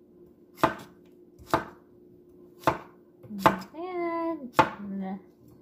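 Kitchen knife chopping cucumber on a wooden cutting board: five sharp chops at an uneven pace, each one the blade striking the board.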